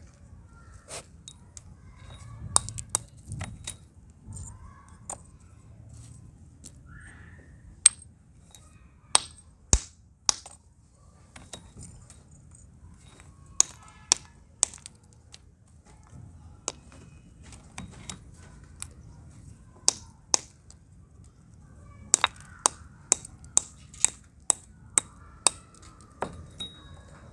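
A metal rod striking terracotta pot shards laid on a flat stone, cracking them down into red grit. The knocks are sharp and irregular, then come in a quick run of about nine strikes, roughly two a second, near the end.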